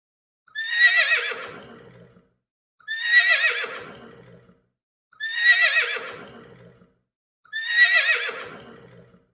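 Horse whinnying four times, the same call repeated about every two and a half seconds. Each whinny is a high, quavering call that starts strong and trails off over about a second and a half.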